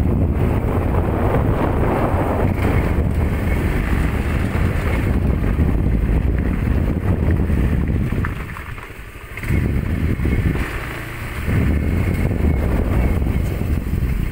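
Motor scooter being ridden along a rough dirt track, its engine running under heavy wind buffeting on the microphone. The rumble drops away briefly twice a little past the middle.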